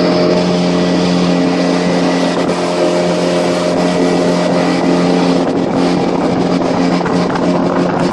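A boat's outboard motor running steadily at a constant speed, a continuous hum with a steady rushing noise over it.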